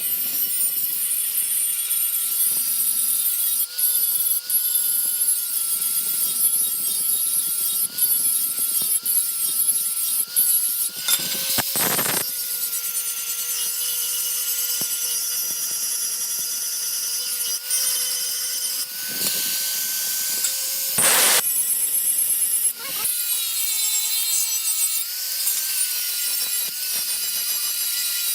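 Electric grinder running steadily with a high motor whine that sags and recovers a little under load, with an abrasive scraping hiss as it works the steel of the old hoe head. There are two brief louder surges, about eleven and twenty-one seconds in.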